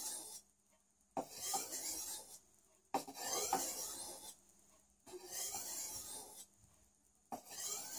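A steel kitchen cleaver being drawn across a sharpening stone. It makes a rasping scrape on each long stroke, about four strokes with brief pauses between them, as the edge is sharpened at a held angle.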